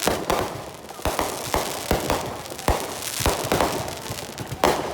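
Fireworks going off: a run of irregularly spaced sharp bangs and pops, about seven or eight strong ones, with a crackling haze between them. The loudest bang comes near the end.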